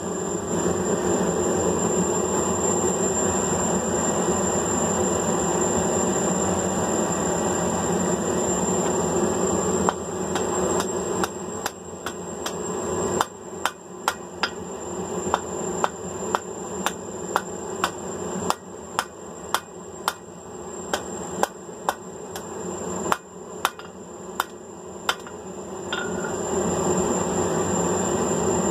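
Hand hammer striking hot mild steel on an anvil in a run of about twenty sharp blows, roughly one a second, as the end of the flat bar is drawn down into a hook. A steady rushing noise from the forge fills the stretches before and after the hammering.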